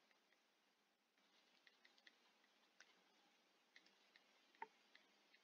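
Near silence with faint, scattered clicks of a stylus tapping on a writing tablet during handwriting, the loudest about four and a half seconds in.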